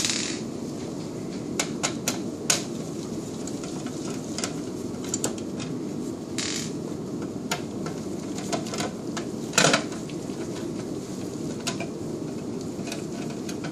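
Scattered sharp metallic clicks and knocks as screws and the sheet-metal collimator housing of an X-ray machine are handled and the cover is worked loose, over a steady low hum.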